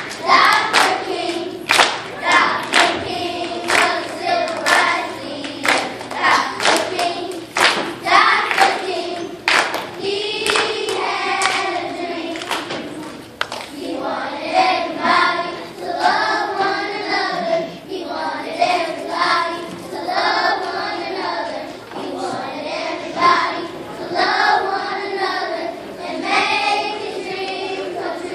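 Young children's choir singing together, with hand claps on a steady beat through roughly the first ten seconds.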